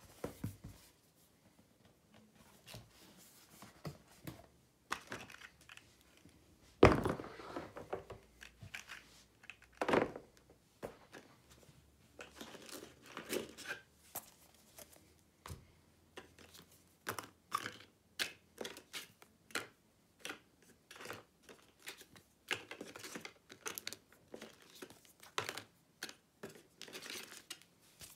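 Hands handling board game components and packaging: rustling and crinkling with many short clicks and taps, and a loud knock about seven seconds in.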